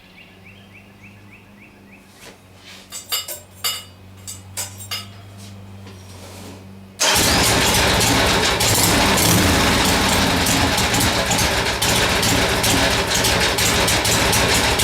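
Harley-Davidson Ironhead Sportster's air-cooled V-twin engine starting. After about seven seconds of scattered clicks and handling noises, the engine catches suddenly and runs loudly and steadily.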